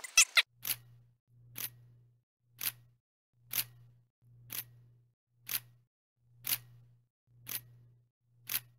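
Camera shutter clicking nine times, about once a second, each click followed by a short low hum.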